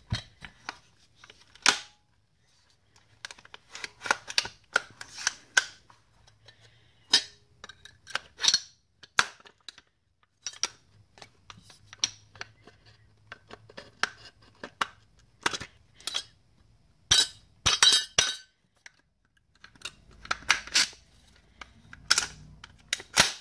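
Sharp metal clicks, clacks and scrapes of a compact AR-15 being assembled by hand, its parts handled and locked together; the clacks come in irregular groups with short pauses between them.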